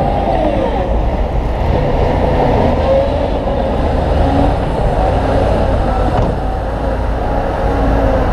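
Heavy earthmoving machinery running steadily: a deep diesel rumble with a wavering whine on top.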